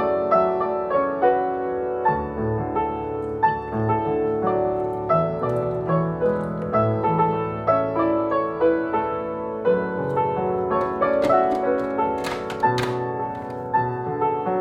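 Solo piano music playing gentle, steady notes, with a few sharp taps or clicks about three-quarters of the way through.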